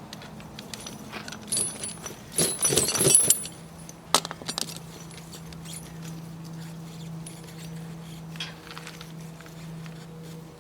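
Steel tractor tire chains rattling and clinking as they are handled, loudest about two to three seconds in, with a sharp metallic clink just after. A low steady hum sets in partway through.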